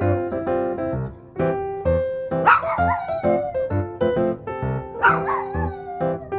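Piano music with a steady run of notes and chords, over which a Pomeranian–poodle mix puppy gives two short howling cries with a falling pitch, about two and a half seconds in and again about five seconds in.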